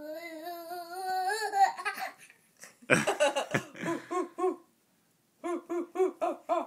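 A toddler's drawn-out vocal animal-noise imitation, slightly rising, then two runs of quick rhythmic laughter.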